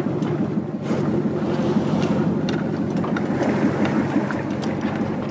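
Workboat motor running steadily, mixed with wind buffeting the microphone, with a few faint light clicks.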